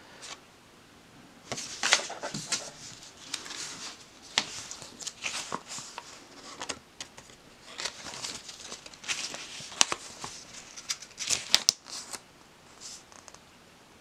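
Paper instruction leaflets being handled and unfolded: irregular rustling and crinkling, with a few sharper paper snaps about eleven seconds in.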